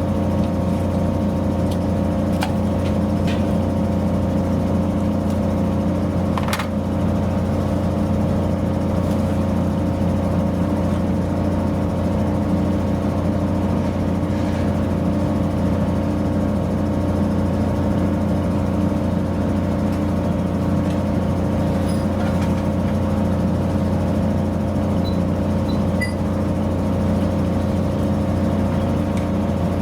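An engine idling steadily, an even hum at one unchanging speed, with a few faint clicks about two and six seconds in.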